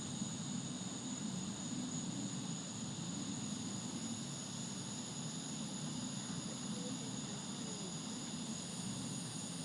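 A steady low roar from the sky with no clear source, with cicadas droning in a steady high pitch over it.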